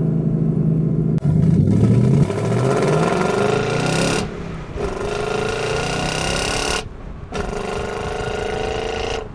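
Ford Mustang GT's Coyote V8, with the active exhaust, held steady at the launch-control limit of about 3,200 rpm. About a second in the clutch is released and the engine pulls hard under full throttle, rising in pitch. The sound breaks off briefly twice, about four and seven seconds in, and each time picks up again as the car keeps accelerating.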